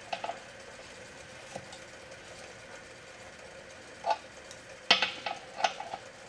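Small metal clinks and clicks of a tool on the air compressor's emergency pressure relief valve as it is tightened into its threaded port. A few scattered clicks, with a short cluster about five seconds in.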